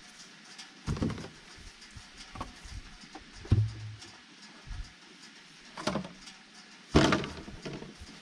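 Scattered thumps, knocks and rustles of a rubber feed bucket and feed pan being handled and feed poured out at a wire fence, the loudest a sharp knock about seven seconds in.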